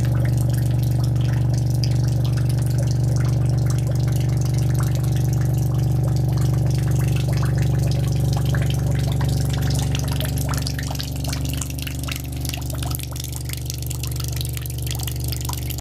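Subwoofer playing a steady low buzzing tone, set to about 24 Hz, with water from a hose taped to its cone streaming and spattering into a bucket over the hum.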